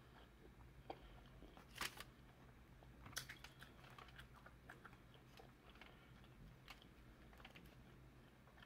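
Faint eating sounds at a seafood meal: scattered small clicks and crackles of hands and a fork working at the food, with two louder clicks about two and three seconds in.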